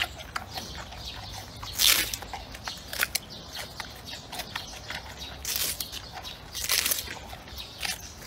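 Giant panda chewing a bamboo shoot close up: irregular crisp crunches and snaps, the loudest about two seconds in.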